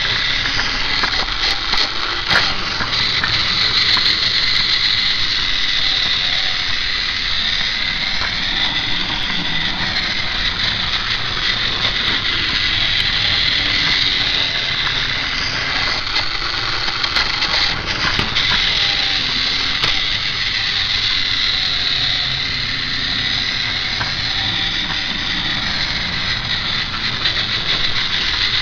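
Tomy battery-powered toy train locomotive running along plastic track: a steady high whine from its small electric motor and gears, with a few brief clicks.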